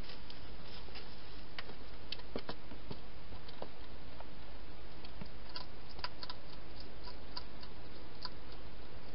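Wild European hedgehog feeding at the bowls inside a plastic feeding box: irregular small clicks and crunches, some in quick clusters, over a steady background hiss.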